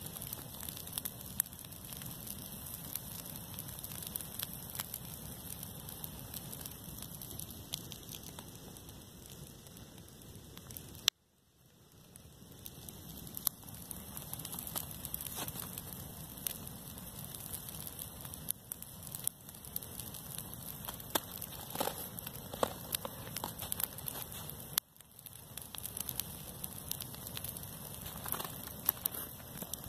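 Dry grass burning: a steady hiss with many small crackles and pops. The sound drops out abruptly twice, about a third of the way in and again near the end, and each time fades back in.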